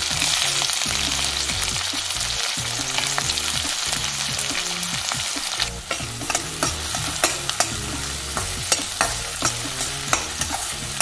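Chopped onions sizzling in hot oil in a stainless steel kadai as they begin to sauté. About halfway through, a slotted metal spatula starts stirring them, scraping and clicking against the pan two or three times a second.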